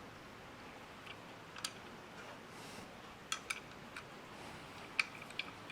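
Faint, irregular metallic clicks and taps, about half a dozen, as an Allen wrench and small metal parts are handled on an LED pod light's mounting bracket. The loudest click comes near the end.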